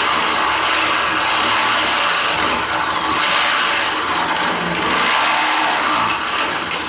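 Electric drill running under load, boring the hole for a door knob in a door; the loud, steady drilling carries a faint high whine that repeatedly falls in pitch.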